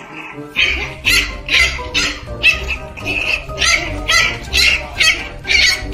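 Background music with a steady beat, its bass coming in under a second in, with a puppy crying over it.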